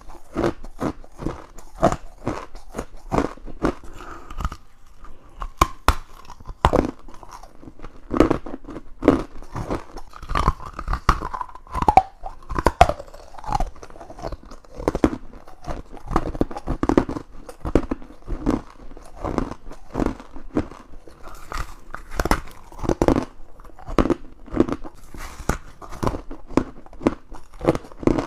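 Close-up crunching bites into frozen humidifier frost and ice cubes, with crisp cracking crunches coming several times a second in quick runs.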